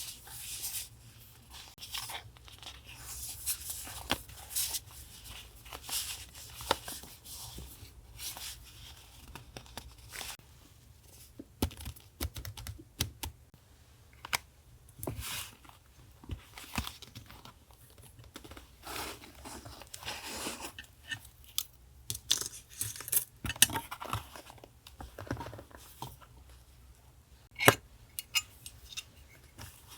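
Paper and packaging being handled: crinkling, rustling and tearing, broken by many short sharp clicks and taps. A low steady hum runs underneath.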